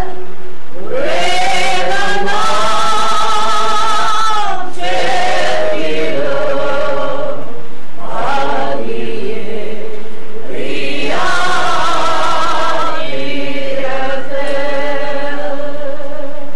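A group of women singing a slow funeral hymn, in long phrases of held, wavering notes with short breaks between them.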